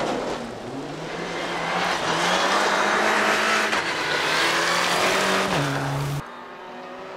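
Rally car's engine working hard through a gravel hairpin: the engine note climbs, holds, then drops near the end as the car closes in, with the tyres crunching on loose gravel loudest in the middle. About six seconds in the sound cuts abruptly to a quieter engine further off.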